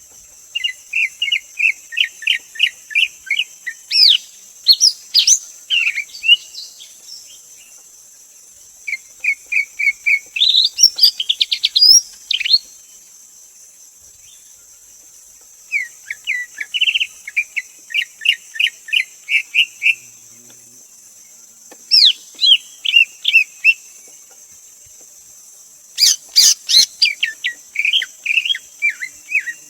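Greater green leafbird singing: phrases of quick, evenly repeated chirps, about five a second, mixed with sharp rising whistled notes. Each phrase lasts two to four seconds, with short pauses between. A steady high hiss runs underneath.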